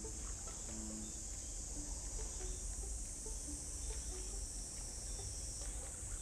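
Insects chirring steadily by a summer reservoir at dusk, an even high-pitched trill with no breaks.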